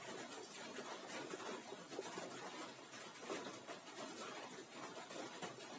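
Faint scratching of a marker pen on a whiteboard in short strokes as an equation is written, over low room noise.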